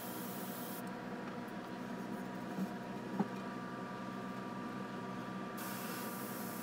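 Gravity-feed airbrush spraying, a steady hiss of air that stops about a second in and comes back near the end. Between the two, a steady low hum carries on with two faint soft knocks.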